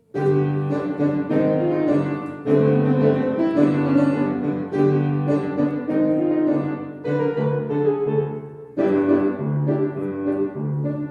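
Piano playing a bouncy accompaniment, with a low bass note repeating in a steady rhythm under chords. It pauses briefly near the end of the phrase and then carries on.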